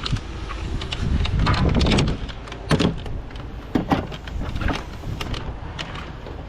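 A series of sharp knocks and clanks over a steady low rumble, loudest about a third and about halfway through.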